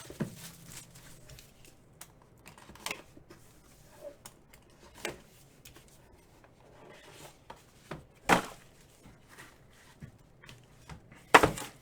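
Trading card box and packaging being torn open and handled: scattered tearing, crinkling and rustling, with louder sharp crackles about eight seconds in and near the end.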